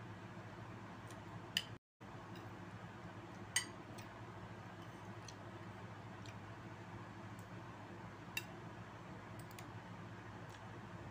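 A person eating a meal by hand: a few sharp, isolated clicks of eating over a steady low hiss, with a very brief dropout about two seconds in.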